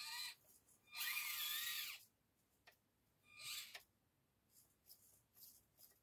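Axial SCX24 Deadbolt micro crawler's small electric motor and gears whining in three short throttle bursts, the pitch rising and falling as the speed changes, followed by a few faint clicks.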